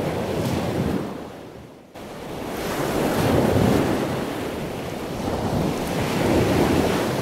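Ocean waves washing, a steady rushing sound laid over the footage. It fades away about a second in, cuts back in abruptly, then swells and ebbs slowly.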